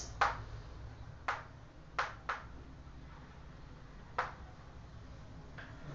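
Chalk writing on a blackboard: a handful of short, sharp taps of the chalk against the board, irregularly spaced, over a faint low hum.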